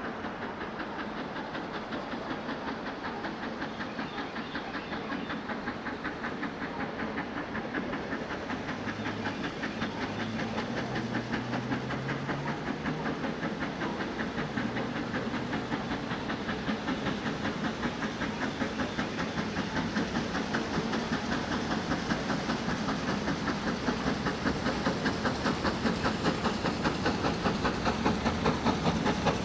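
Steam locomotive working with a rapid, regular exhaust beat and hiss, growing steadily louder as it approaches.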